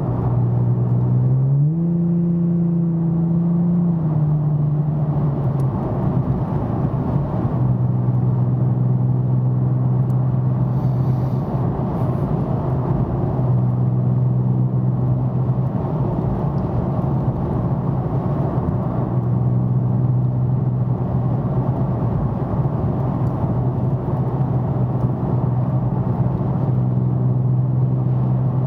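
2009 Nissan 370Z's 3.7-litre V6 through a Fast Intentions exhaust with 18-inch carbon-fibre resonators and non-resonated high-flow cats, heard from inside the closed cabin while cruising: a steady low exhaust drone. Its pitch rises briefly about a second and a half in and settles back about two seconds later.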